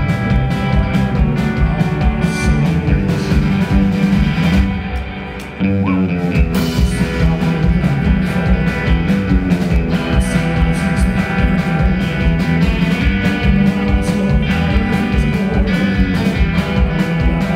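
A live band plays a country-rock song led by guitar. The music drops back briefly about five seconds in, then comes back in at full level.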